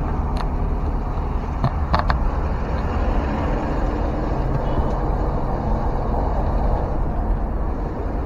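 A car driving on a road, heard from inside the cabin: a steady low rumble of engine and tyre noise. There are a few brief high squeaks about two seconds in.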